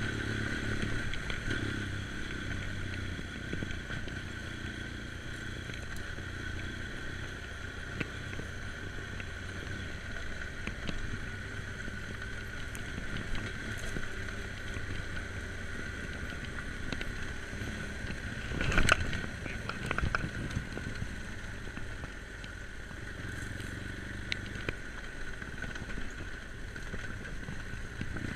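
BMW GS adventure motorcycle running steadily at low speed on a dirt lane, heard from a camera on the bike: engine note with road and wind noise. Two sharp knocks close together about two-thirds of the way through.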